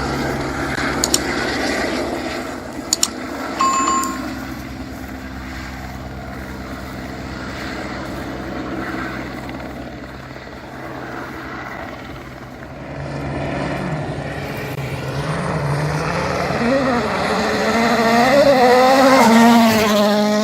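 Rally car engine approaching, growing louder over the last several seconds with its pitch rising and dipping as it revs through the gears, then cutting off abruptly. Before that, a steady low engine hum with a few sharp clicks and a short beep about four seconds in.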